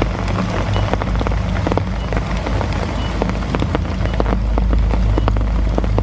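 Heavy rain falling: a dense hiss full of small sharp ticks of drops striking leaves and gear, over the steady low rush of a waterfall.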